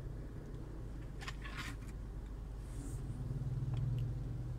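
Steady low hum in a parked pickup truck's cabin, with brief rustling and clicks from a phone and its USB cable being handled about a second in.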